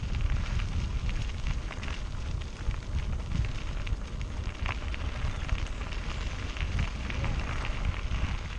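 Mountain bike rolling over rough ground, its tyres crackling with a dense run of small ticks, while a strong, uneven wind rumble buffets the microphone.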